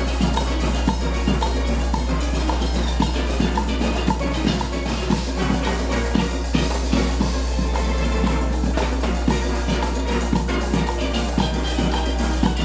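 A full steel band playing many steel pans together as one ensemble, with a steady beat running underneath.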